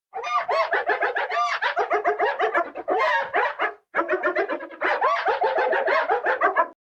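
Mantisaur creature sound effect: a fast, chattering run of clucking, chirping calls, in two bursts with a short break partway through.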